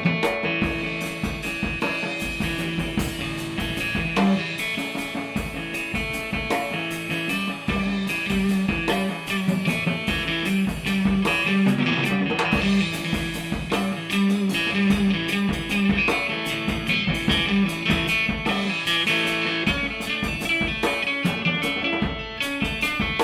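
A drum kit and a guitar-type instrument, the Guitarode, playing together: busy drumming under repeated low plucked notes.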